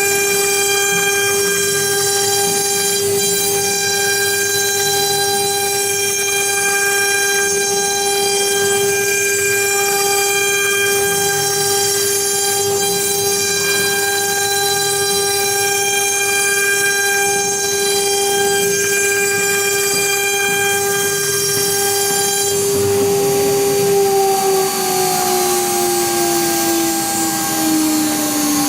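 CNC cutting machine's motor running with a steady high-pitched whine while cutting EVA foam. Near the end the whine slides steadily down in pitch as the motor winds down.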